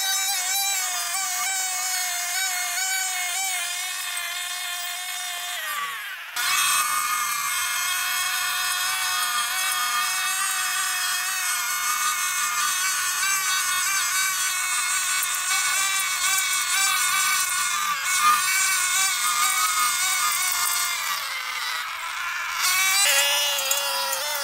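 Backpack brush cutter running at high speed while cutting grass: a steady, high engine whine that wavers slightly in pitch. The sound breaks off abruptly and resumes about six seconds in and again near the end.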